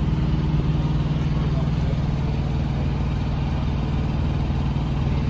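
Harley-Davidson FXDR's Milwaukee-Eight 114 (1868 cc) V-twin engine idling steadily through its 2-into-1 exhaust.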